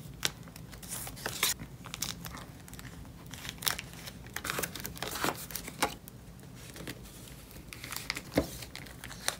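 Clear plastic binder sleeves crinkling and rustling as photocards are slid into their pockets and a page is turned, in scattered short rustles and clicks.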